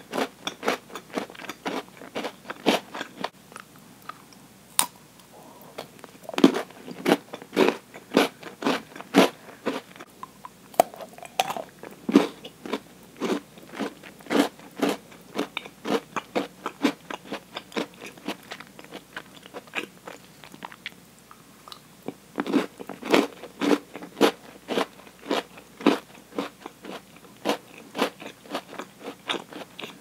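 Close-miked biting and chewing of a thick milk chocolate bar with Oreo cookie filling: a long run of sharp crunches and clicks, thinning out briefly a couple of times.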